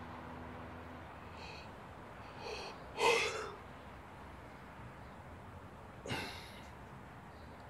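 A man's non-speech vocal sounds: short gasping breaths, a louder voiced sigh about three seconds in, and a sharp breath about six seconds in.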